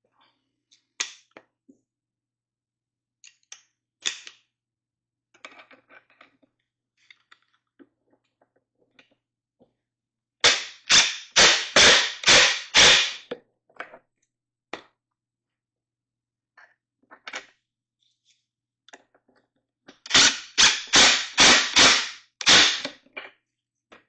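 Cordless DeWalt impact driver tightening bolts into a wooden stool frame in short trigger bursts: a run of about six bursts starting around ten seconds in, and another run of about six near twenty seconds. Light clicks and knocks of parts being handled come before them.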